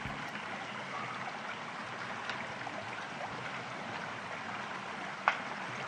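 Steady rushing noise, with a single sharp click about five seconds in.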